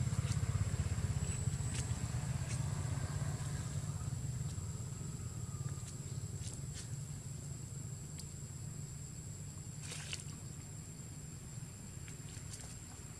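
Outdoor background rumble, low and steady, fading slowly, with a faint steady high whine over it and a few light scattered ticks, the densest cluster about ten seconds in.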